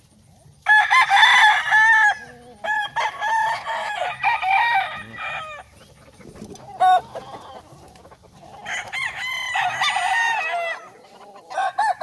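Roosters crowing, one long crow after another: about a second in, again around three seconds in, and once more near nine seconds, with a short squawk between.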